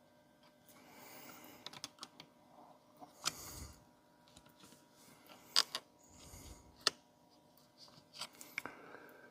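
Small parts of a chainsaw being handled and fitted during reassembly: scattered clicks, light taps and rubbing of plastic and metal, with a couple of dull bumps and a few sharper clicks about halfway through.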